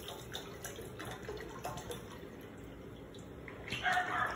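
Water poured from a plastic bottle into a frying pan, trickling and splashing onto the metal, with a louder burst of pouring about four seconds in as the bottle is tipped higher.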